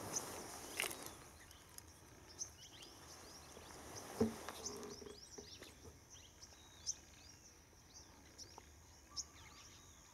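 Birds chirping: many short, high calls scattered throughout over quiet outdoor ambience. A brief knock comes near the start and a short low call or thud about four seconds in.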